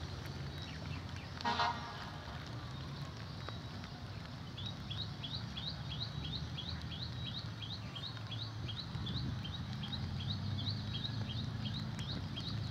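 A short honk from a vehicle horn about a second and a half in, the loudest sound, over a low steady rumble. From about four seconds on, a high chirp repeats two to three times a second, likely a bird calling.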